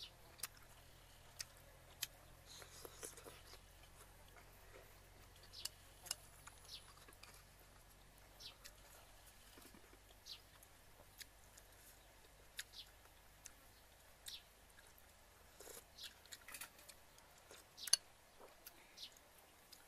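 Faint eating sounds: chewing and lip smacks, with scattered sharp clicks of a spoon against a bowl, the sharpest about three seconds before the end.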